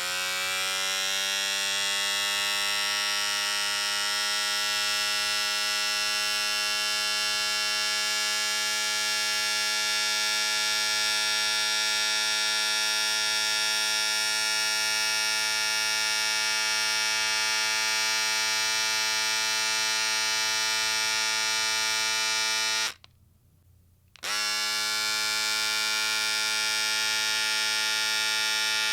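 Electric shaver running with a steady buzz. It switches off about 23 seconds in and back on a little over a second later, the motor rising slightly in pitch as it comes up to speed each time it starts.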